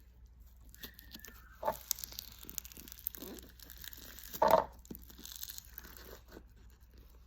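Hands stretching and squishing a clear boba slime, making soft sticky crackles and small clicks, with one louder squish about four and a half seconds in.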